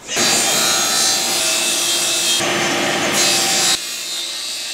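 Table saw ripping wood into strips: loud cutting noise over the steady hum of the spinning blade, easing off about a second before the end as the cut finishes.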